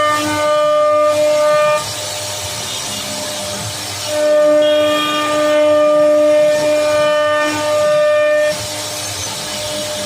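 CNC wood router's spindle cutting wood: a loud, steady whine that stops about two seconds in, comes back around four seconds and stops again past eight seconds, with a duller hiss between the bouts.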